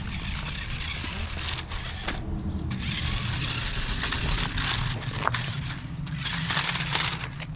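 Toy remote-control car driving over the ground, its tyres scrabbling and crackling, over a steady low rumble.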